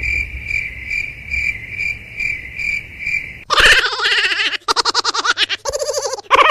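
Steady high insect chirping, pulsing about twice a second, cut off after about three seconds by a louder, rapidly warbling call.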